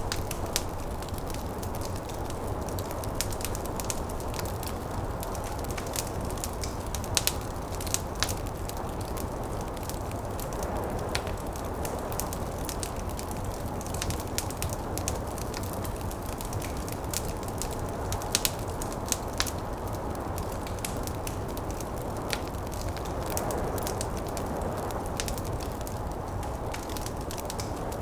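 Wood fire crackling in a fireplace, with frequent small snaps and a few louder pops, over a steady low rush of snowstorm wind.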